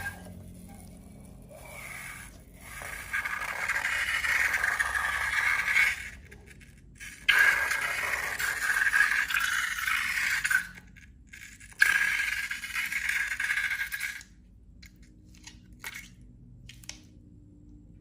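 A scraping, rattling noise in three long stretches of a few seconds each, each starting suddenly, with a few faint clicks near the end.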